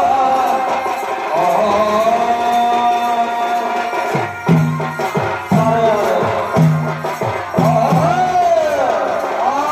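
Live folk music: a held, wavering melody line, joined from about four seconds in by deep drum strokes about once a second.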